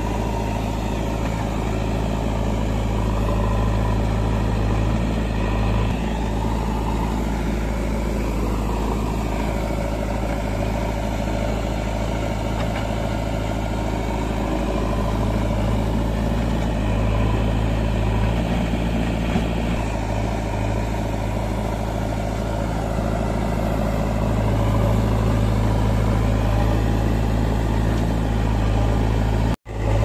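Diesel engines of a JCB 3DX backhoe loader and a Massey Ferguson tractor running steadily, with the note rising and falling now and then as the backhoe works, and a brief break near the end.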